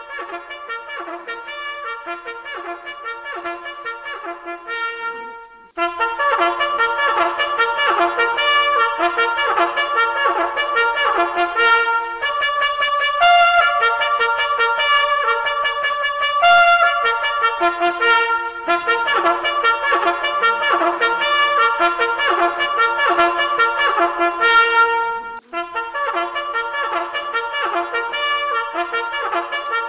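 Background instrumental music with a steady rhythm, lighter for the first few seconds, then fuller and louder from about six seconds in.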